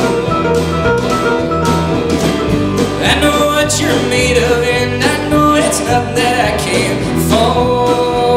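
Live folk/Americana band playing: mandolin picking over acoustic guitar, upright bass and drums, with a steady beat.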